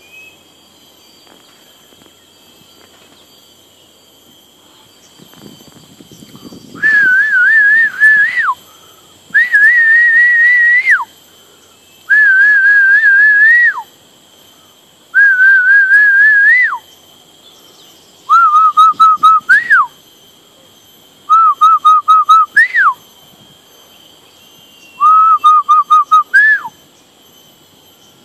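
Seven loud whistles in a row, each about a second and a half long and ending with a quick drop in pitch. The first four are held with a slight waver. The last three are broken into a fast trill.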